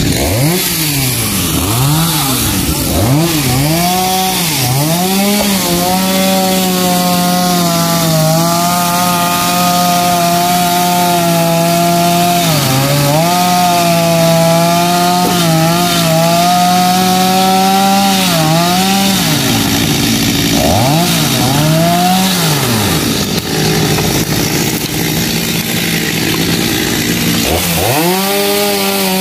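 Two-stroke chainsaw revved in quick throttle blips, then held at high revs for long stretches while cutting through log sections of a fallen tree. It drops back to idle for a few seconds and revs up again near the end.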